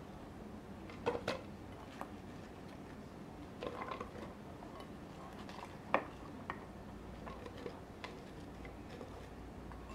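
Kitchen utensils and dishes being handled: a scattered run of small clicks and knocks, with the sharpest knocks about a second in and about six seconds in.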